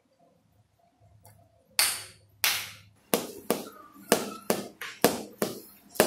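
A mallet striking an adjusting instrument held against a man's back in hammer therapy: two loud knocks, then a quicker run of lighter knocks at about two to three a second, each with a short ring.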